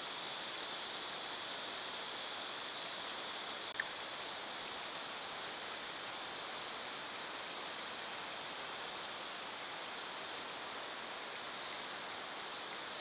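Steady, even outdoor background hiss picked up by a trail camera's microphone at a creek, strongest in a high band, broken by one short sharp click about four seconds in.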